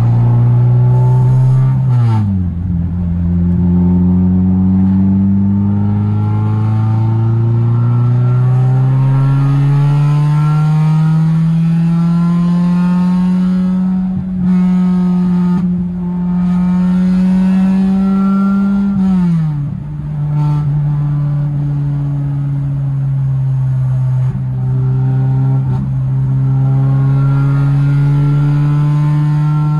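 Honda Civic EG's four-cylinder engine pulling through the gears, heard from inside the cabin. The pitch drops sharply about two seconds in, climbs slowly for over ten seconds and holds, then drops again around nineteen seconds and stays steady as it cruises.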